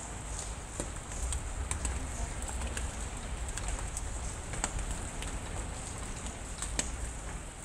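Outdoor ambience: a steady hiss over a low rumble, with a few scattered sharp clicks.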